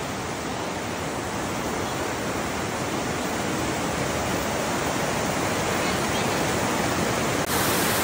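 Mountain stream rushing over boulders in rapids: a steady, even rush of water that grows slightly louder, with an abrupt change in its sound near the end.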